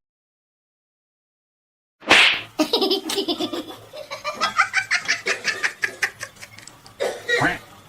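Silence for about two seconds, then a person laughing hard in a rapid run of bursts that lasts until near the end.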